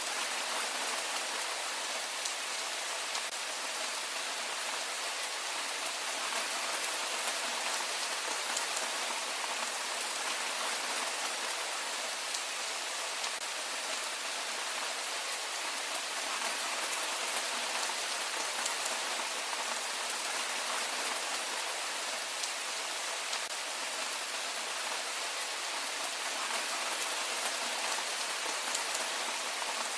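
Heavy rain falling steadily, a dense even hiss of drops with fine pattering, unchanging throughout.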